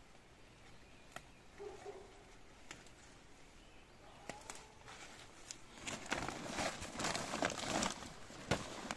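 Gomchwi leaf stalks snapped off by hand, a few sharp clicks spaced seconds apart. From about six seconds in, a woven plastic sack rustles and crinkles loudly as the picked leaves go into it.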